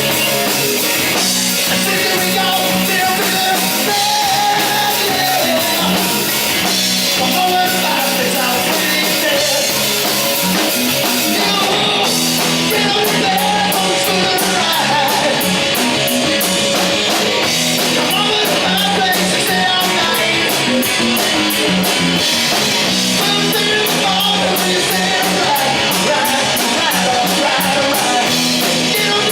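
Live rock band playing: electric guitar, drum kit and a singer, loud and steady, with the cymbals ticking evenly through the second half.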